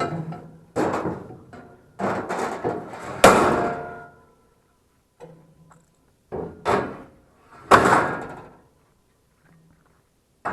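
A string of sudden knocks and thuds from hard objects being handled and set down. The loudest is a slam about three seconds in, and there is another heavy one near eight seconds.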